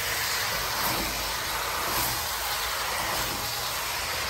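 Steady hiss of spinach and chicken cooking in a steel kadai over a gas flame, steaming as it is stirred, with a low steady rumble underneath.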